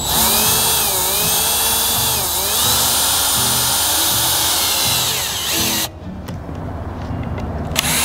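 Cordless drill driving a screw into a 1x3 wooden board. The motor whine sags and recovers as the screw bites, runs for about six seconds, stops, then gives a short burst near the end as the screw is seated.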